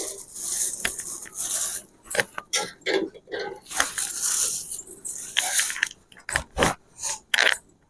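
Thin plastic carrier bag crinkling and rustling as eggs are taken out of it, with light knocks of eggs set into an aluminium pot of water, two sharper knocks about six and a half seconds in.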